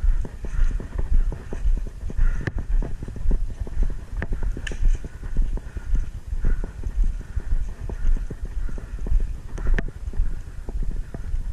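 Footsteps of the camera wearer, thudding on the microphone about twice a second at a walking pace. A few sharp clicks sound over them.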